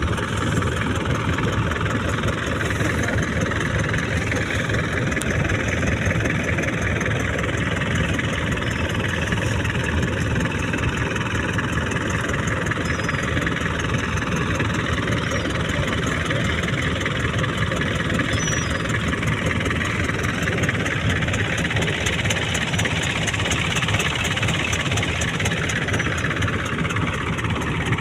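Fishing boat's engine running steadily at an even pace.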